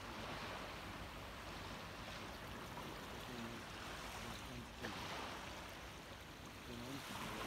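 Small waves washing up a sandy beach, the wash swelling and easing in slow surges, with a single short click about five seconds in.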